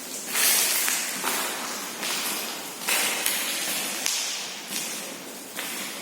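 Footsteps crunching and scraping on broken debris, a sharp gritty crunch roughly once a second, each fading away over most of a second.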